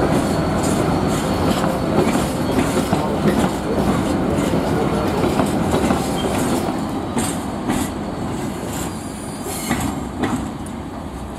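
Ballast hopper wagons of a freight train rolling past, their steel wheels clattering over the rail joints. The rumble fades steadily as the train draws away, with a faint wheel squeal near the end.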